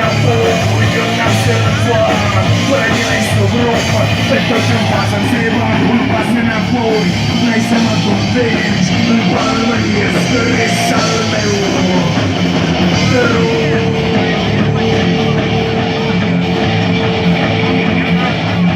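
Loud rock music with no words made out. One note is held for about five seconds, starting about two-thirds of the way through.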